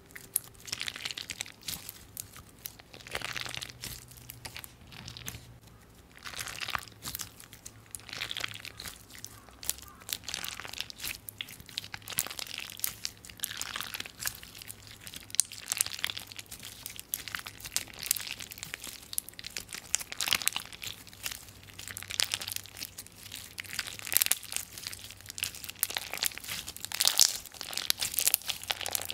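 Clear slime packed with small blue and white plastic beads being squeezed and kneaded by hand: a dense, irregular crunching and crackling as the beads press and click against each other.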